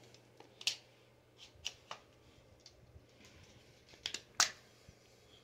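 A few sharp plastic clicks and knocks from a pistol-grip RC radio transmitter being handled and turned over, scattered through a quiet stretch, with the loudest pair about four seconds in.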